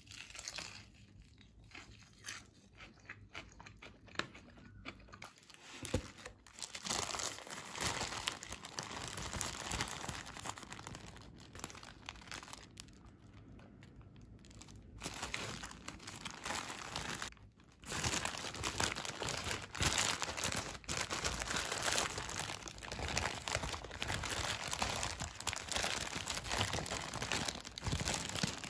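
Paper burger wrapper crinkling and rustling as a wrapped burger is handled and unwrapped. It is quieter for the first several seconds and then loud and continuous, with a short lull in the middle.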